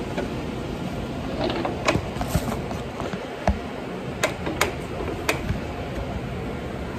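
Handling noise of a phone being picked up and moved: scattered sharp clicks and knocks from fingers and the casing close to the microphone, over a steady kitchen hum.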